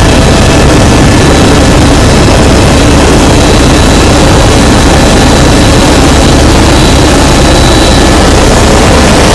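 Helicopter in flight heard from inside the cabin: loud, steady rotor and engine noise with a thin, steady high whine.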